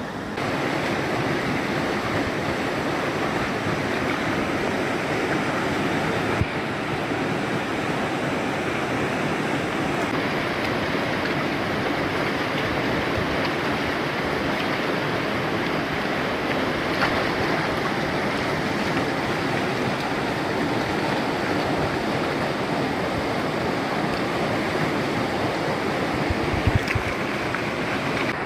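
River rapids rushing steadily, a continuous noise of whitewater pouring over rocks and a weir. A couple of brief knocks come near the end.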